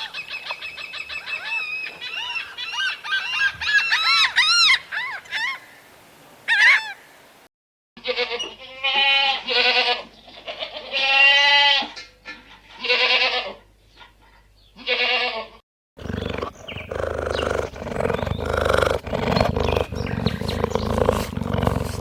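Three animal clips in a row. First come about seven seconds of rapid high chirps, then a run of quavering bleats, each about a second long. The last is dense clucking from a flock of chickens.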